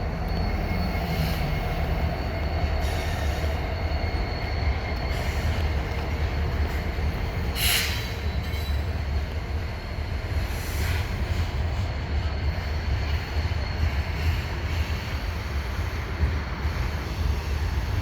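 Freight train rolling past on the main line: a steady low rumble of wheels on rail, with a faint thin high squeal running under it. There is a brief sharp screech about eight seconds in and a weaker one near eleven seconds.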